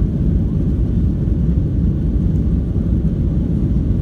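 Steady low rumble inside the cabin of a Ryanair Boeing 737-800, the jet engines and the rolling of the airliner along the ground heard through the fuselage.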